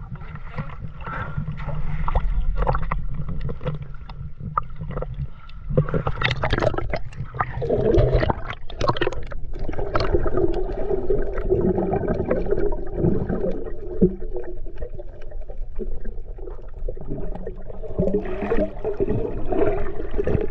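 Sea water lapping and splashing against a camera at the surface, then muffled underwater gurgling and bubbling once it goes under, with air bubbles from a free diver rising past it.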